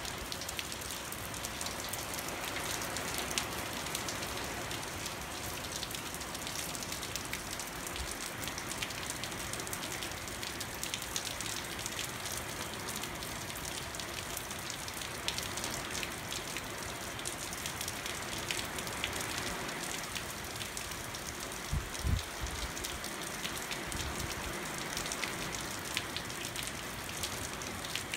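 Heavy hurricane rain from Hurricane Irma pouring steadily, full of fine pattering ticks, with a few low thumps, one about a third of the way in and a pair about three-quarters of the way in.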